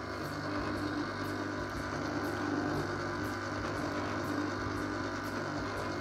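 Electric ice cream maker's motor running with a steady hum, turning the paddle through the eggnog ice cream mix as it churns.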